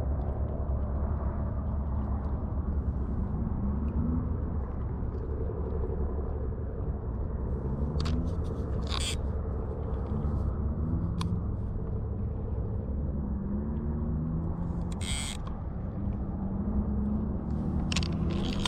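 Steady low rumble, with faint short rising tones and a few sharp clicks scattered through it.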